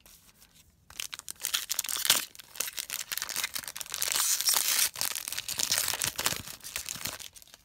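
Foil wrapper of a Panini Prizm baseball card pack crinkling and tearing as it is ripped open by hand, starting about a second in and going on for several seconds.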